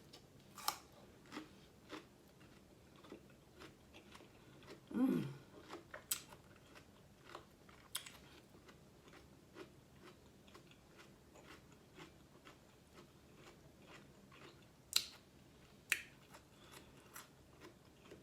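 Close-miked chewing and mouth sounds of a person eating, with scattered sharp clicks and smacks. About five seconds in comes a brief low vocal sound that falls in pitch.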